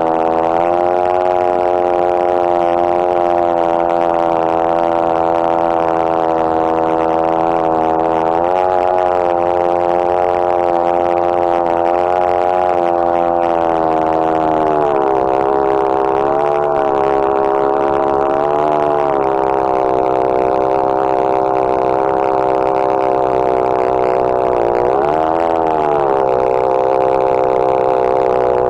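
Two-stroke chainsaw in a chainsaw mill running at full throttle while ripping lengthwise through a red cedar log to cut a plank. The engine note holds steady but sags briefly and recovers several times under the load of the cut, the deepest dip near the end.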